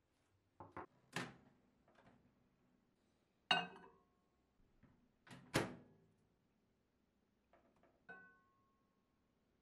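Kitchen utensils and dishes being handled: about eight separate knocks and taps, the loudest two about halfway through. A few ring briefly after the hit, most clearly one near the end.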